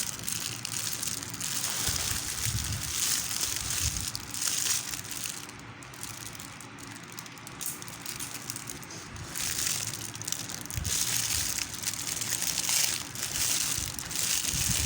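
Packaging rustling and crinkling as a parcel is handled and unwrapped, quieter for a few seconds in the middle.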